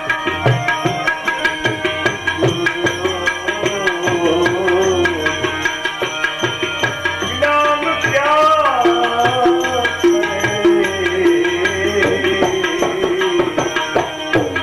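Devotional bhajan music: tabla playing a steady rhythm with deep bass-drum strokes under a gliding melody line.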